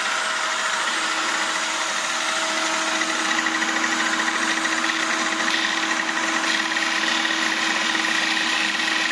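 Electric polisher running as a homemade disc sander, its motor spinning the sanding disc with a steady whine over a hiss. A higher whine grows stronger about three seconds in.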